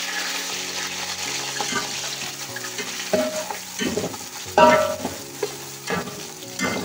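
Sliced onions sizzling as they fry in hot ghee in a steel pot. From about three seconds in, a metal spoon stirs them, clanking and scraping against the pot, loudest a little past halfway.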